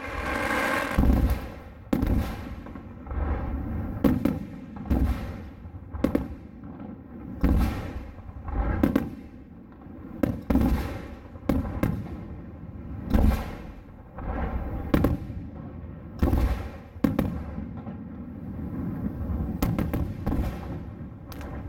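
Aerial fireworks shells bursting in quick succession, a sharp bang about every second with a low rumble between. Near the end comes a quicker cluster of smaller cracks.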